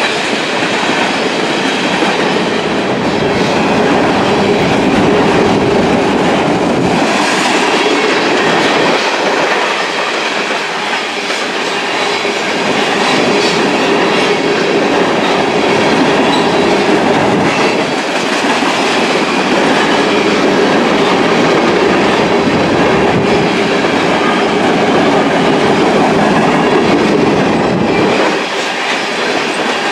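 Freight train of covered hopper cars rolling past at close range: steady, loud noise of steel wheels on the rails.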